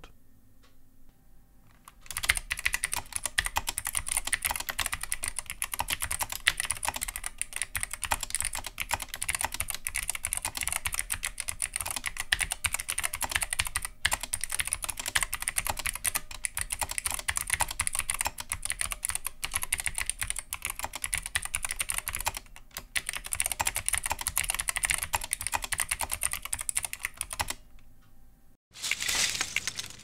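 Fast continuous typing on a Truly Ergonomic Cleave keyboard with Outemu PG816 optoelectric snap-action switches: a dense run of key clicks that starts about two seconds in and stops a couple of seconds before the end.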